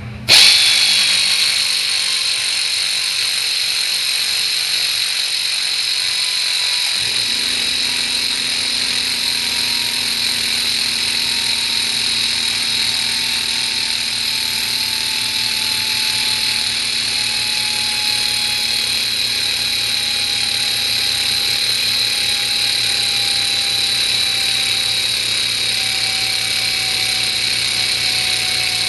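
Pneumatic air ratchet triggered just after the start and run free without a break: a loud, steady hissing whine whose tone slowly falls as it loses speed, because the compressor cannot keep up with its air demand. About seven seconds in, the twin-piston oil-free air compressor kicks on underneath with a low hum.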